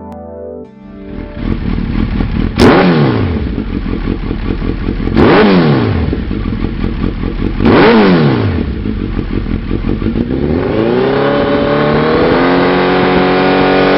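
Suzuki Hayabusa's inline-four engine running through a Lextek GP1 aftermarket silencer. It idles and is blipped sharply three times, about two and a half seconds apart. Near the end it is brought up more slowly and held at a higher rev.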